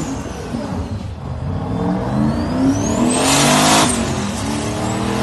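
Turbocharged Mazda RX-7 FC accelerating hard: the engine note climbs with a rising turbo whistle over it. About three seconds in a loud hiss comes as the pitch drops at a gear change, then the engine climbs again.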